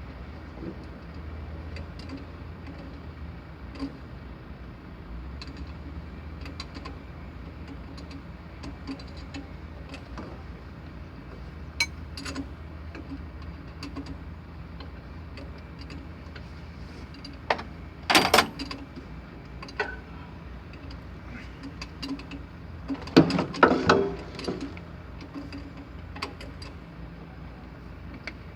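A steady low engine hum, with scattered light clicks of tools and parts. About two-thirds through comes a sharp loud clatter, and near the end a longer run of loud metallic knocks.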